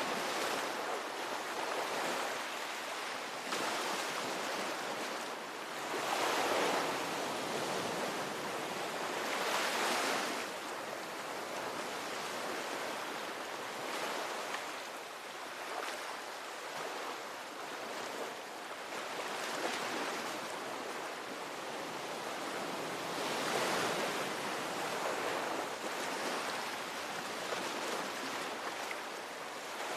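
Ocean waves breaking and washing on the shore, a steady rush of surf that swells louder every few seconds as each wave comes in.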